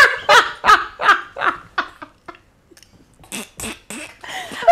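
Hearty laughter: a run of rhythmic 'ha-ha-ha' laughs that fades out about two seconds in, then a few breathy bursts of laughter near the end.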